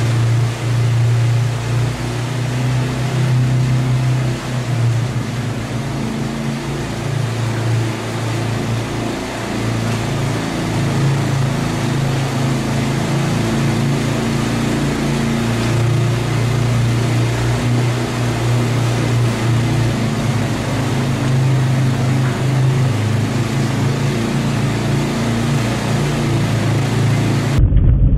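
Vehicle engine running at a steady drone over the rumble of rough, bumpy ground. Near the end it cuts suddenly to a different recording of driving noise.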